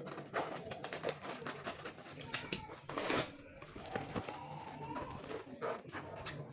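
A parcel's packaging being handled and opened: irregular crinkling and rustling with sharp clicks and scrapes, loudest around three seconds in.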